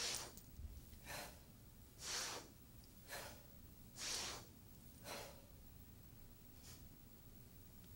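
Forceful, audible breaths in time with the movement of a Tensegrity exercise, about one a second, alternately louder and softer. The breaths turn fainter about six seconds in.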